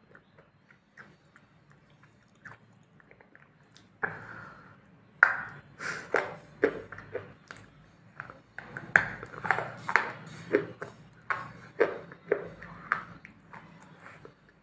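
A person biting and chewing food close to the microphone: faint small mouth clicks at first, then from about four seconds in a quick run of loud, crisp crunches and wet clicks.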